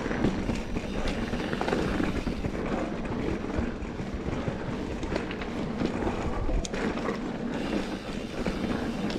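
Mountain bike rolling along a dirt singletrack trail: steady tyre and frame rattle with a few sharp clicks, and wind rumble on the microphone.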